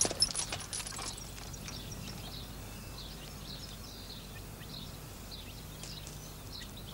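Horse and buggy coming to a halt: a few hoof and harness clicks in the first second. Then a steady quiet background with small birds chirping.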